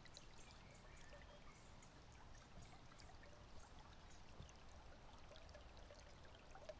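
Near silence: a faint trickle of running water with scattered small ticks.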